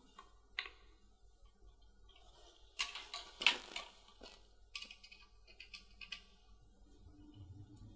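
Faint, irregular clicks and short scrapes of a small screwdriver and plastic parts as a tiny screw is driven in to fix the wind vane on an Oregon Scientific WMR300 wind sensor, with a denser run of scraping about three seconds in.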